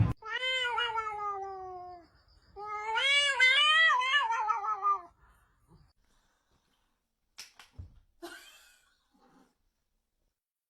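Domestic cat yowling twice in long, drawn-out calls, the first sliding down in pitch, the second wavering up and down. Faint clicks and a short knock follow later.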